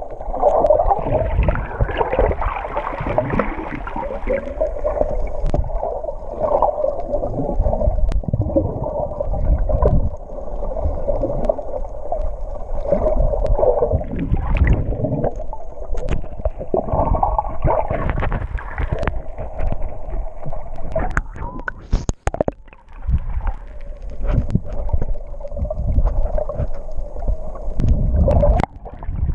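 Muffled underwater sound picked up through an action camera's waterproof housing: water swishing and gurgling around the camera as the snorkeler swims and moves it, with a steady hum-like drone underneath and a couple of sharp clicks about two-thirds of the way through.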